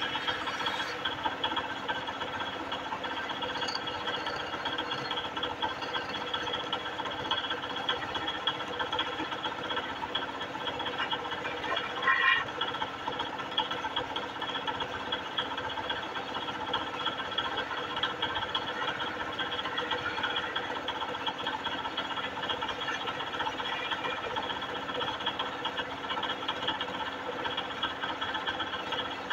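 Belt-driven wood lathe running steadily while a hand chisel cuts a spinning wooden spindle, a constant machine hum with the rasp of the tool on the wood. There is one brief louder scrape near the middle.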